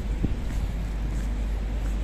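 Steady low outdoor rumble of wind on the phone microphone mixed with city traffic noise, with a few faint ticks.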